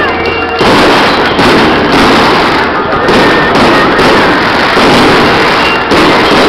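Aerial fireworks bursting in a rapid, near-unbroken string of loud bangs and crackles.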